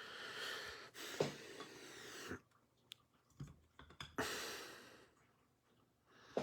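Faint rustling swells and a few light clicks from trading cards and their pack being handled.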